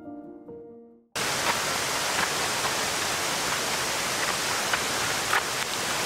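Soft piano notes fade out, and about a second in a steady, even rushing noise cuts in abruptly and holds, with a few faint ticks in it.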